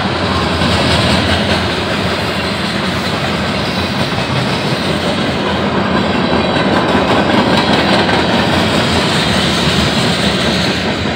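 Freight train of covered hopper cars and boxcars rolling past close by: a loud, steady noise of steel wheels running on the rails.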